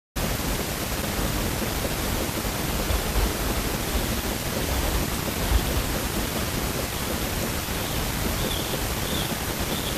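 Steady, even rushing noise filling the forest air, with a brief low thump about halfway through and three faint short high notes near the end.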